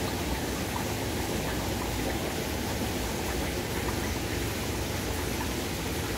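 Aquarium water circulation: a steady, even rush and hiss of moving water from the tank's filtration, with no breaks or changes.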